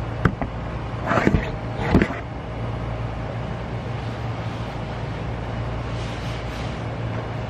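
A phone's microphone bumped and rubbed during handling: a sharp knock, then a cluster of rustles and a second knock in the first two seconds. Under it, a steady low hum continues throughout.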